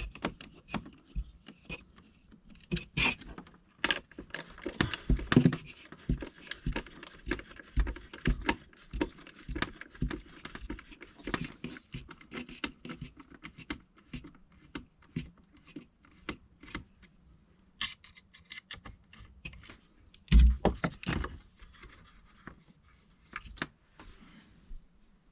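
Irregular taps, clicks and scrapes with some rustling, from hand work on the trailer's bedside panels and the parts and debris around them. The loudest knocks come about twenty seconds in.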